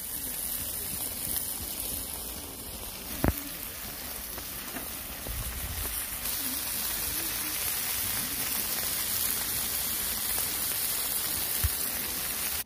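Chicken skewers and kimchi sizzling in aluminium foil over a charcoal grill: a steady hiss, with one sharp click about three seconds in and a faint one near the end.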